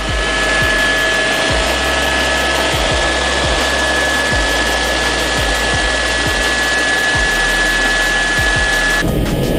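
Helicopter cabin noise in cruise flight: a steady loud rush of engine and rotor noise with a constant high-pitched turbine whine. About nine seconds in it changes abruptly to a different, lower-sounding cabin noise.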